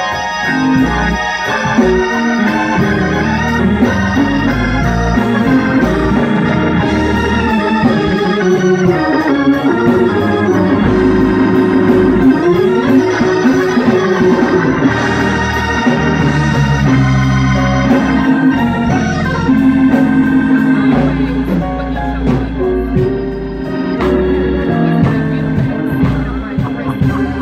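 Electric church organ playing gospel chords: held, changing chords over a moving bass line.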